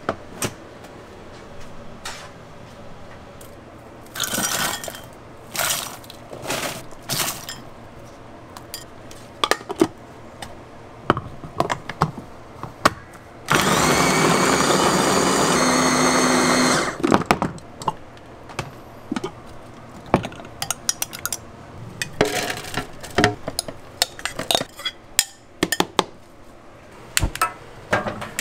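NEXOVER electric mini chopper running for about three seconds in the middle, chopping food in its glass bowl. Before and after it come short, scattered clinks and knocks of kitchen utensils against steel food pans and containers.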